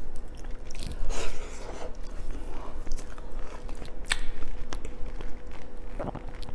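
A person chewing a mouthful of soft stewed potato close to a clip-on microphone, with a few sharp wet mouth clicks.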